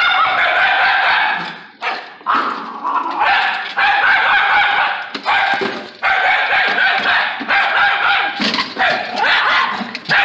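Miniature schnauzer barking in long, rapid runs of a second or two each, with short breaks between them, at the lawnmower, which the dog hates.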